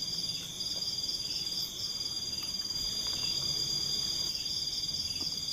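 Night-time chorus of crickets and other forest insects, a steady high-pitched trill with fainter pulsing chirps above it.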